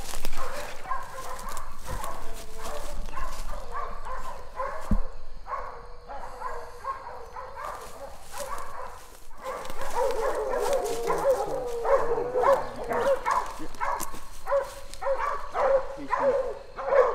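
Hog-hunting dogs barking repeatedly in quick runs. The barking thins out around the middle and thickens again about ten seconds in.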